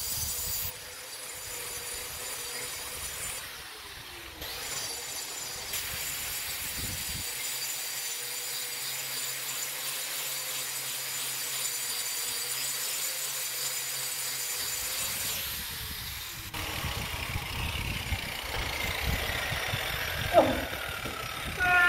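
Angle grinder with a diamond cup wheel grinding a concrete floor: a steady high whine over grinding noise. About three-quarters of the way through the sound changes, and falling tones follow as it winds down.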